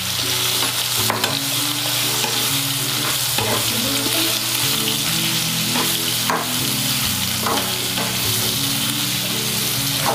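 Raw mango pieces sizzling in hot spiced oil in a nonstick kadhai, stirred with a plastic spatula that scrapes the pan a few times. The mango has just gone into the tempering of mustard and fenugreek seeds.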